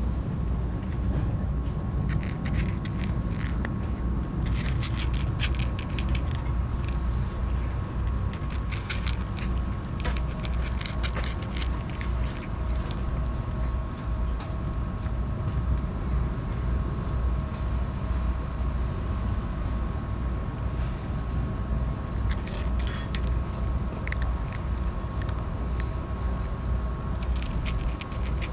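A steady low rumble with a faint steady tone over it. Now and then come short runs of crisp clicks from a cat crunching dry kibble.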